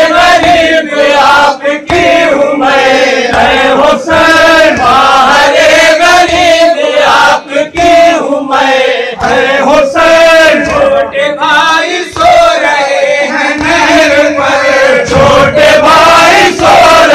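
Men reciting a noha, a Shia Muharram lament, in unison through a microphone and loudspeaker, loud and continuous. Chest-beating (matam) strikes sound along with the chant.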